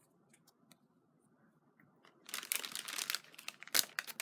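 Clear plastic bag crinkling as hands rummage inside it among paper die cuts, starting about two seconds in after a near-quiet start, with one sharper crackle near the end.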